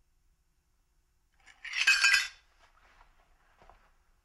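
A short burst of metallic clinking and jingling about a second and a half in, lasting under a second, followed by faint rustling.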